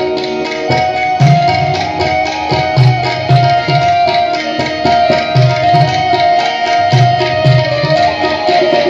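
Live Indian devotional music: tabla playing a steady rhythm with deep bass strokes under a sustained, held melody line, without singing.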